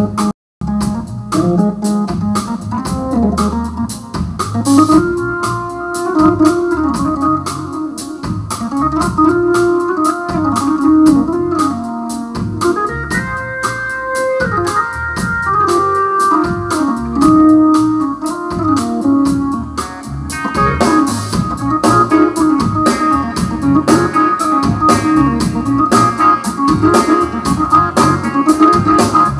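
Hammond organ playing a solo in a live blues band, sustained chords and fast runs over a steady drum kit beat. The sound cuts out for a moment about half a second in, and the drumming grows busier in the last third.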